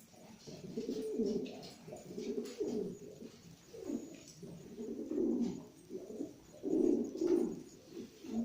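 Domestic pigeons cooing: low, rolling coos repeated in phrases about once a second.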